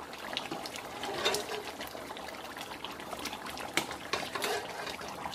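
Hot pot of meat broth simmering, with quiet, irregular bubbling pops and small ticks.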